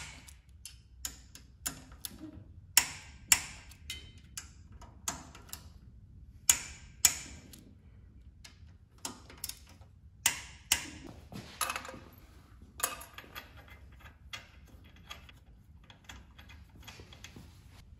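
Click-type torque wrench ratcheting, sharp irregular clicks with some quick runs, as T30 Torx valve cover screws are tightened to 85 inch-pounds. The clicks grow fainter over the last few seconds.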